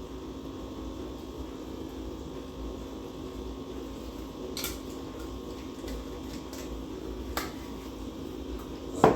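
Steady mechanical hum, like a kitchen appliance fan, with a few faint light clicks of kitchenware.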